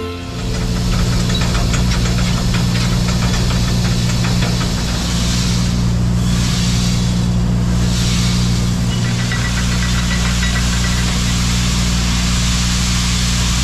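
Engine of a farm machine running steadily at constant speed, a low hum with a noisy hiss over it.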